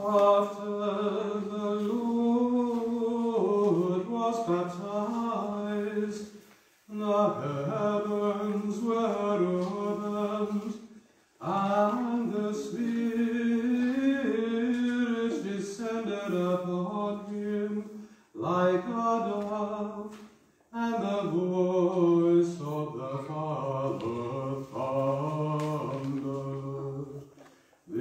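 A single unaccompanied voice singing a chant in five phrases, with short breaks between them. The last phrase sits lower in pitch.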